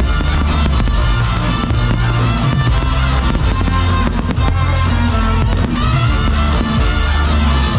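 Aerial fireworks going off over loud accompanying show music: a steady bass line throughout, with a cluster of sharp bangs and crackles in the middle.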